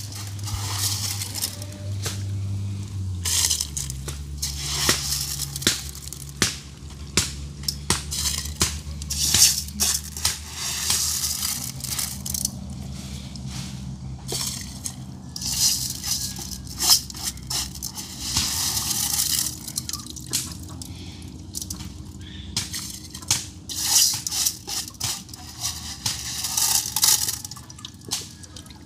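Rice being washed by hand in water: irregular swishing and splashing with drips, in short bursts through the whole stretch.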